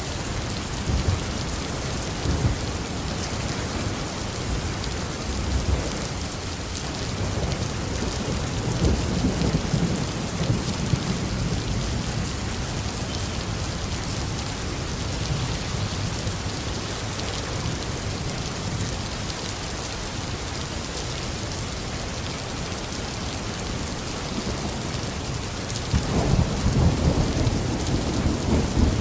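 Heavy rain falling steadily on a roof, with low rolls of thunder: one about a third of the way in and a louder one starting near the end.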